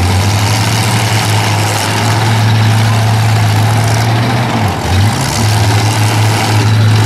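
Demolition derby pickup truck engines running with a loud, steady low drone; about four and a half seconds in the pitch briefly sags and then comes back up.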